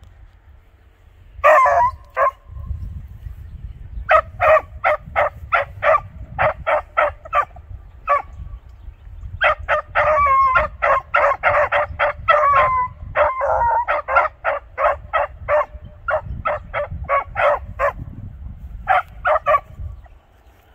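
Beagles barking on a scent trail: runs of short, quick barks, several a second, broken by short pauses, with a stretch of longer, wavering bawls about ten seconds in.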